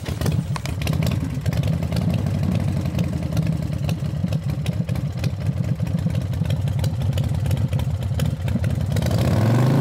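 Motorcycle engine running with a rapid, lumpy exhaust pulse; near the end it gets louder and its pitch climbs as it revs.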